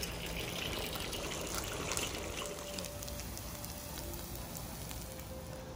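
Hot oil in a wok sizzling, with many small crackles over a steady hiss.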